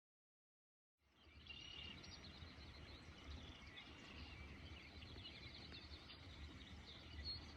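Faint lakeside ambience fading in after about a second of dead silence: small birds chirping over a low, steady rumble.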